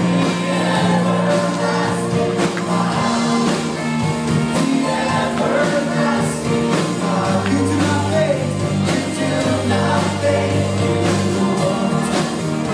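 A worship song: voices singing over a band with held chords and a steady beat.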